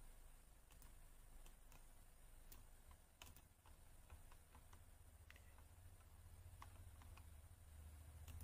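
Near silence: a dozen or so faint, irregular clicks from a computer mouse and keyboard in use, over a low steady hum.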